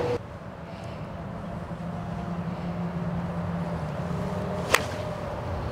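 A golf club striking a ball: one sharp crack near the end, over a steady low hum and outdoor background noise.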